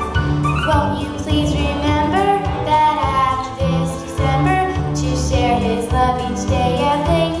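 A song with a female voice singing over a steady bass and drum beat.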